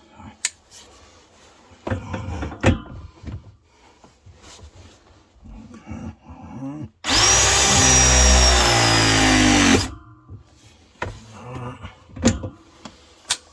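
Ridgid RB 340 ProPress tool's motor running through one crimp cycle on a copper coupling. It gives about three seconds of steady, loud whirring with a high whine that slowly sinks in pitch, then cuts off. Clicks and knocks of the tool and jaw being handled come before and after.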